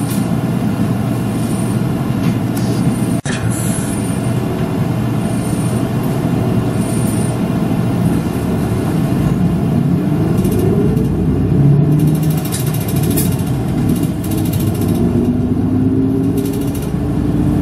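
Route bus driving along, its engine and road noise heard from inside the cabin. The engine note rises twice as the bus speeds up, about ten seconds in and again near the end.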